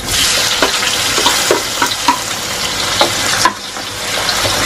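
Chopped tomatoes, onions and garlic sizzling in hot oil in a metal wok while a wooden spatula stirs them, scraping and tapping against the pan.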